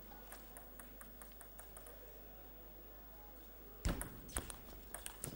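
Table tennis rally: the celluloid ball clicking off rackets and table in a quick, even rhythm, about three strokes a second. About four seconds in comes a much louder knock with a low thump, then a few more quick clicks.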